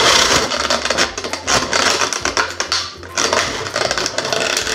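Clear plastic bag crinkling and crackling, very loud, as it is handled and the action figures are pulled out of it.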